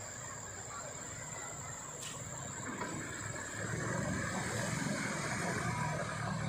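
A truck's engine working as it crawls through deep mud ruts, growing louder from about three and a half seconds in as the truck draws closer.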